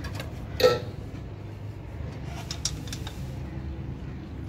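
Hand tools knocking on a truck's diesel engine: one loud, sharp metal clank about half a second in and a few light taps a couple of seconds later, over a steady low rumble.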